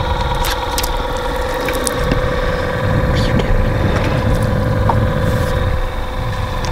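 A boat motor running steadily, a constant whine over a low rumble, with a few light clicks and knocks scattered through.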